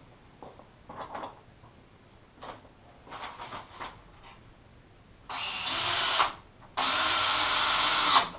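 Cordless drill driving two screws into the timber frame joints, two runs of a second or so each near the end, after a few light knocks and handling sounds.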